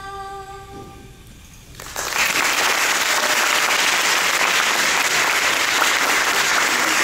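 A final piano note rings and fades out, then audience applause starts about two seconds in and carries on steadily and loudly.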